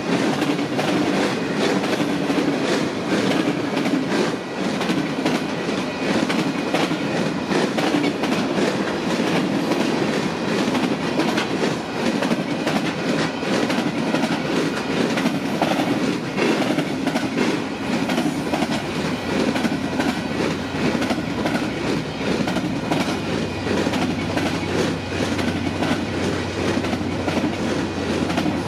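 Freight train cars (covered hoppers, then autoracks) rolling past at steady speed: continuous steel-wheel rumble with rapid clickety-clack over the rail joints. A low hum joins in during the last few seconds.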